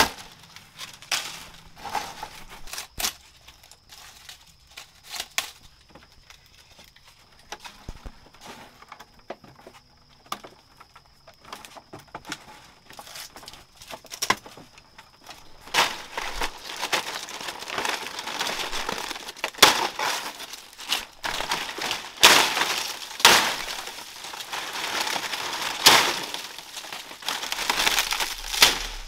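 Irregular crunching and crackling of plant material being handled and broken by hand: sparse at first, then busier and louder in the second half.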